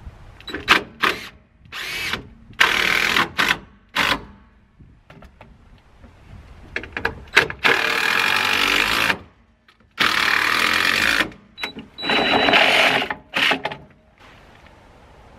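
Cordless drill driving screws into wood, running in stop-start bursts: several short bursts, then three longer runs of one to two seconds each, with pauses between.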